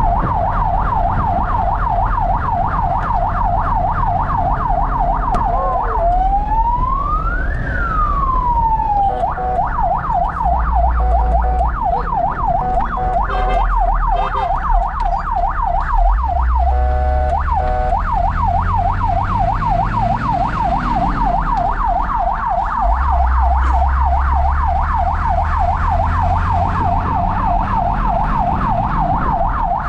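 Fire engine's electronic siren heard from inside the cab, cycling a rapid yelp. About six seconds in it switches to one slow rising and falling wail, then goes back to the yelp, with a couple of short changes to steady tones around the middle. The truck's engine drones underneath and swells a few times as it accelerates.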